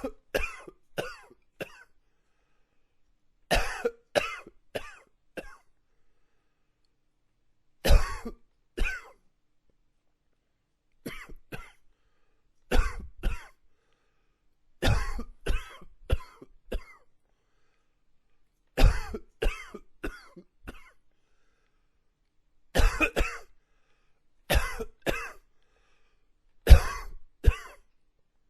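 A man coughing in fits of two to four sharp coughs, one fit every two to four seconds, with silence between the fits.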